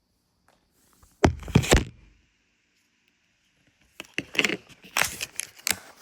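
Snack packaging being handled and opened: two spells of loud crinkling and rustling with sharp clicks, the second one longer and busier.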